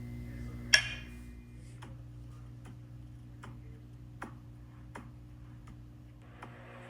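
One sharp click, then a run of light, evenly spaced ticks about every three-quarters of a second, over a steady low hum.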